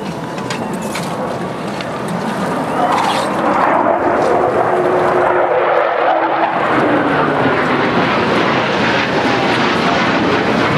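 Blue Angels F/A-18 Hornet jet flying past: broad jet noise that swells about three seconds in and stays loud, with a faint tone dropping in pitch a little after the middle as the jet goes by.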